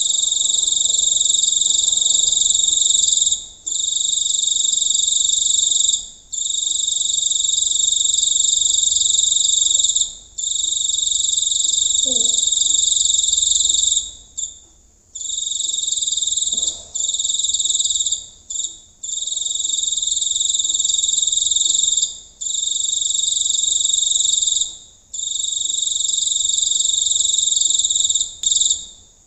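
A large cricket calling close up: a loud, continuous high-pitched trill that runs in long stretches of two to four seconds, each broken off by a brief pause.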